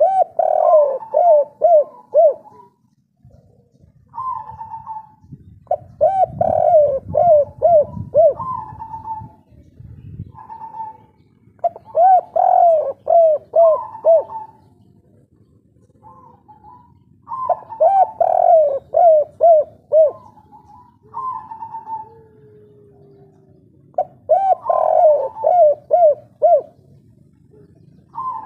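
Spotted dove singing phrases about every six seconds. Each phrase is a higher opening note followed by a quick run of lower coos, the song dove keepers call "kuk 3".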